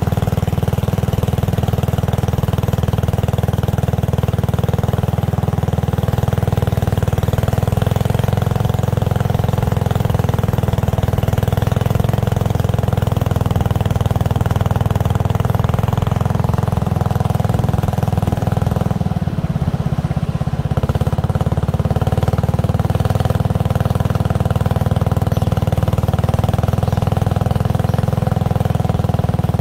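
Small tour boat's engine running steadily under way, a constant hum that dips briefly about two-thirds of the way through.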